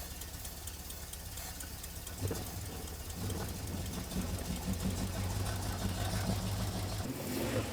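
A 1969 Ford Bronco's carbureted engine, just brought back to life on starting fluid after sitting, idling with a steady pulsing rumble. It grows a little stronger about three seconds in, and the deepest part of the rumble drops away near the end.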